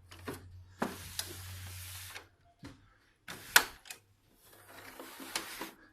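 A cloth wiping down the cover of a split air-conditioner indoor unit: two long rubbing strokes, with sharp taps and knocks of hand and cloth against the casing, the loudest knock about halfway through.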